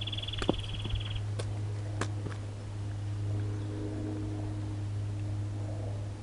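Footsteps on bare sandstone, a few sharp taps and scuffs in the first two seconds, over a steady low hum. A short, rapid high-pitched trill sounds in the first second.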